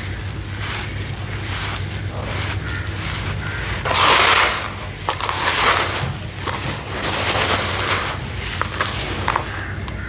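Clumps of dusty sawdust and sand crumbling into water: a run of soft crumbly crackles and crunches, the loudest about four seconds in.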